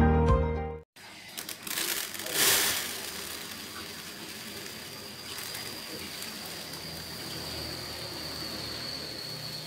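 Piano music cuts off about a second in, followed by uncooked rice grains pouring from a container onto a woven bamboo winnowing tray: a steady, grainy hiss, louder at first, with a faint high steady tone under it.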